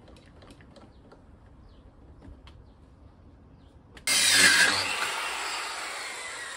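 Faint small clicks and taps while a board is marked out. About four seconds in, a corded circular saw starts abruptly, cutting through a pine board. It is loudest at the start and fades gradually through the cut.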